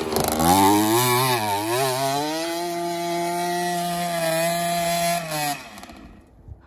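Pit bike engine revving hard up a steep dirt hill climb. The revs swing up and down at first, then hold high and steady for about three seconds before falling away near the end.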